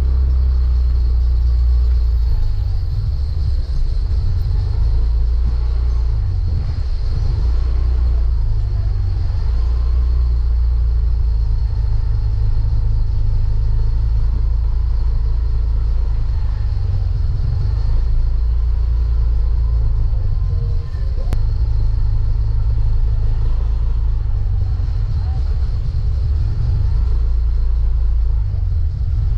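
Motorcycle riding: heavy wind rumble buffeting the microphone, with a fainter engine note rising and falling underneath.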